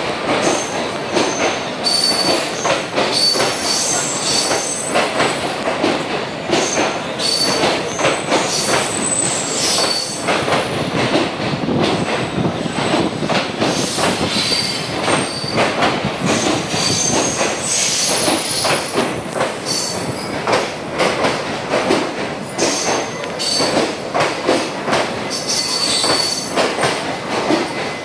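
Moving train: a steady rattle and clatter, with high squeals coming and going throughout.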